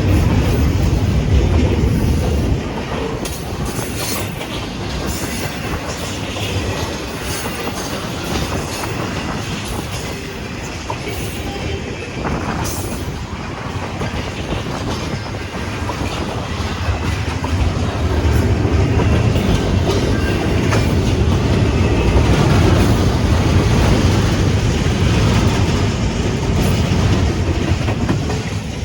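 Cars of a CSX freight train rolling past over a grade crossing: a steady heavy rumble with clickety-clack from the wheels over rail joints and occasional wheel squeal. It grows louder for several seconds in the middle and eases near the end.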